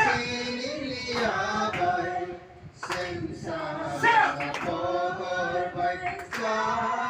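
A group of voices singing together without accompaniment, in long held notes. There is a short break between phrases a little before the middle.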